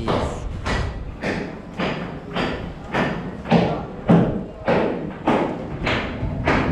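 Footsteps at a steady walking pace, about two thudding steps a second, close to the microphone.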